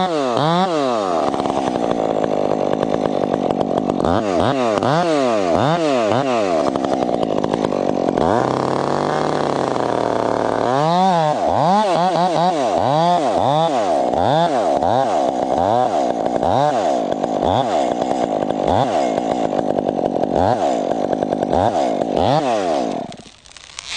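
Chainsaw running, its engine pitch rising and falling over and over, then stopping near the end.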